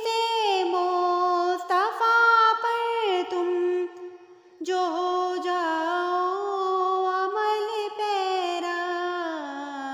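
A single voice singing a naat without instruments: long held notes with ornamented pitch bends, a short breath pause about four seconds in, and a phrase falling in pitch near the end.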